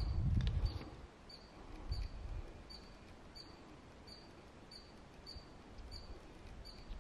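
Wind buffeting the microphone in gusts, loudest at the start and again about two seconds in, over a steady series of short, high chirps, about two a second, from a small calling animal.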